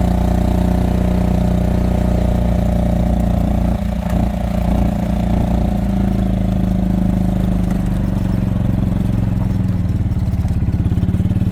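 A vehicle engine running steadily at low speed, with a brief dip in level about four seconds in.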